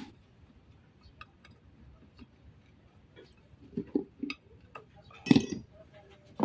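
Metal parts of a truck air dryer clinking and knocking as they are handled and fitted together, with a few light clicks, a cluster of knocks around four seconds in and a loud ringing metallic clank about five seconds in.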